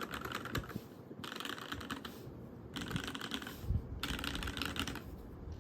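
Mechanical keyboard with lubed Cherry Vintage Black linear switches, a top-mounted copper plate and GMK doubleshot ABS keycaps, typed on in four quick runs of about a second each, with short pauses between.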